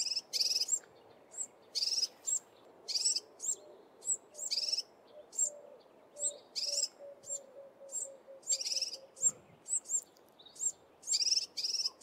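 Collared sunbird calling: a steady series of short, high, sharp notes, roughly two a second, some in quick pairs.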